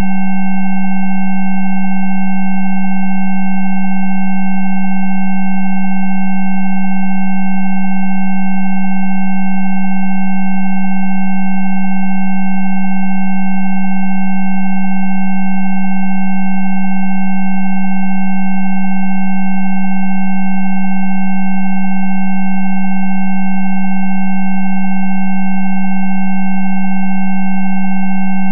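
Synthesised Rife 'healing frequency' tone: a loud, steady electronic hum pitched low, with several quieter higher tones held over it, unchanging throughout.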